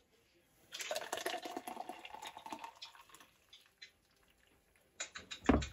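Thick blended smoothie being poured from a glass blender jar into a plastic cup, a splashy pour of about two seconds. Near the end a second pour begins and a dull thump sounds.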